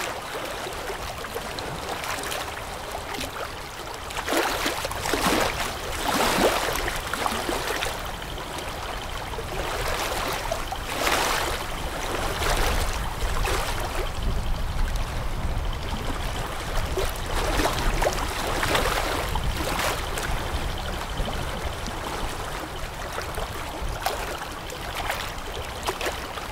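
Water splashing and pouring from a Komatsu excavator's bucket in several irregular surges, over the low, steady rumble of the excavator's engine.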